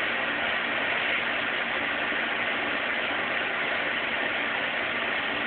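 Steady machine-shop noise: an even hiss with a constant low hum, unchanging throughout.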